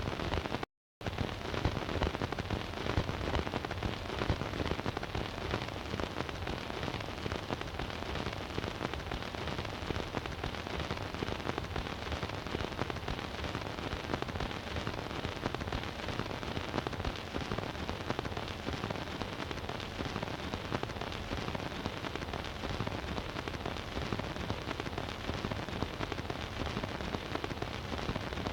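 Surface noise of an 8-inch 78 rpm record's lead-in groove playing on a Bush record player: a steady hiss thick with crackle and fine clicks, with no music yet.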